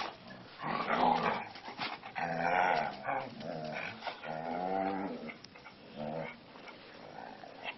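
Dogs growling in several drawn-out, wavering bouts.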